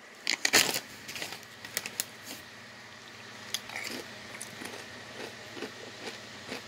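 Crunching and chewing kettle-cooked potato chips close to the microphone: sharp crackles in the first second, then a steady run of small irregular crunches as the chips are chewed.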